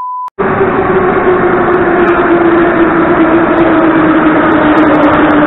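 A brief 1 kHz test-tone beep, then a metro train running loudly along the platform, with a whine from its traction motors that slowly falls in pitch as the train slows.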